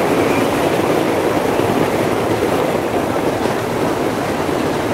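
Steady rushing noise of wind and sea surf breaking on the bridge piers, with a diesel-hauled passenger train crossing slowly, blended into it.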